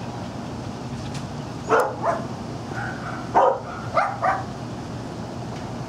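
A dog barking about five times in short, sharp barks: a pair near two seconds in, then three more around three and a half to four and a half seconds in.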